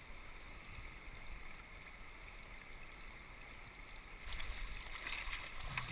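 Steady hiss of shallow river water running over gravel, with a short patch of light splashing and clicking a little past four seconds in as the hook is worked out of a king salmon held in the landing net.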